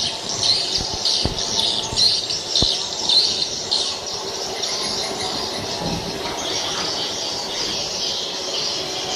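Many swiftlets twittering together: a dense, high chirping chorus, loudest in the first four seconds, with a couple of sharp clicks.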